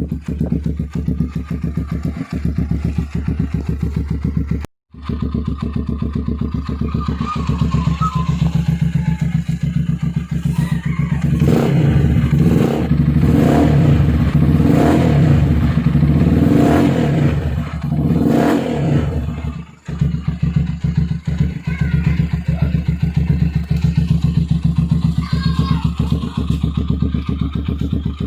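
Motorstar Explorer Z200 motorcycle with a Yushimura racing muffler on the stock exhaust elbow, idling with a steady beat. Through the middle it is blipped up and down repeatedly in several loud revs, then settles back to idle. There is a brief dropout about five seconds in.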